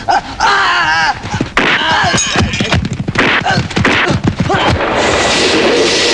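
Movie fight sound effects: a rapid string of punch and kick impacts with shouts and grunts. About five seconds in they give way to the steady rushing noise of a steam locomotive running.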